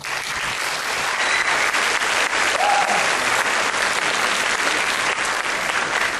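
Concert audience applauding, starting all at once and holding steady.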